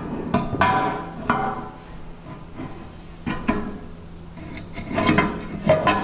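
Steel scraper blade clanking against a small steel backhoe bucket as it is fitted in place: several separate metal knocks, each with a short ring, loudest near the end.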